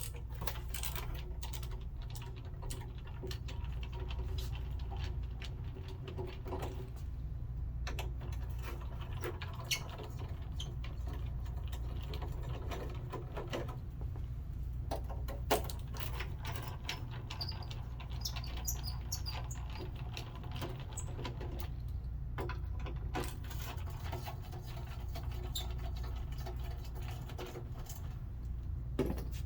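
Irregular clicking, scraping and rattling of plastic scooter body panels and screws being handled and worked loose to uncover the controller, over a steady low hum.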